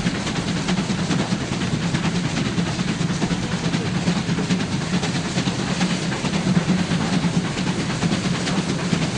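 Class 52 2-10-0 steam freight locomotive 52 7596 running with its train of coaches: its steam exhaust and the wheels on the rails make a continuous dense rushing, dotted with fine beats.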